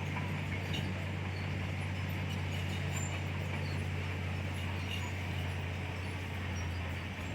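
Komatsu bulldozer's diesel engine running at a steady pitch as it works soil, with a constant low drone and light clicking and clanking from the tracks and blade.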